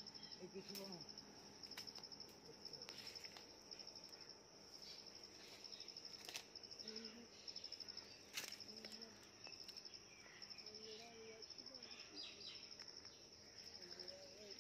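Faint insect chirping in the trees: a high-pitched trill repeated in short bursts about once a second, with a few faint bird chirps and a couple of soft clicks.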